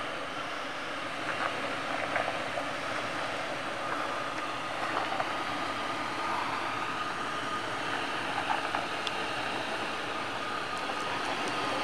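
A 4x4 vehicle driving on a rough dirt track: steady engine and rolling noise with a few scattered knocks and rattles.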